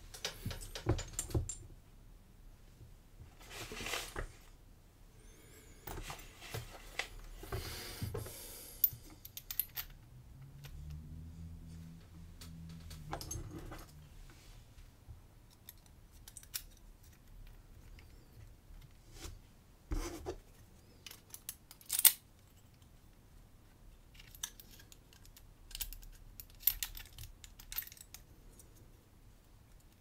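Small metal clicks, taps and short scrapes from handling a brass lock cylinder while a metal tube is pushed against its back as a plug follower to draw out the plug. The sharpest click comes about two-thirds of the way through.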